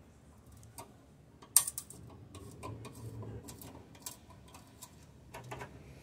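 Light, irregular metallic clicks and ticks from a 6 mm × 1.0 tap being turned by hand in a T-handle tap wrench, cutting fresh threads in a steel panel hole where a broken screw was drilled out. The sharpest click comes about one and a half seconds in.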